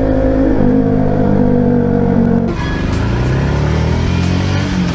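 Motorcycle engine running steadily, heard from the rider's onboard camera. About halfway through, the sound changes to another motorcycle whose engine note rises as it accelerates.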